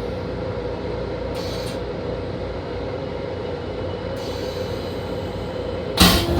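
Steady rumble of a Long Island Rail Road M7 electric railcar running, heard from inside the car, with a steady hum and faint hissing at times. A sudden loud burst near the end.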